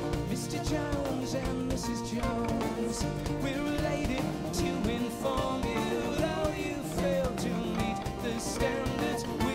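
Live folk-rock band playing: strummed acoustic guitar and a mandolin-family instrument over bass and drums.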